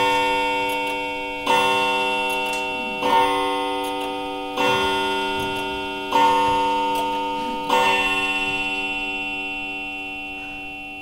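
Clock chime striking six times, one deep ringing stroke about every second and a half, the last stroke dying away slowly.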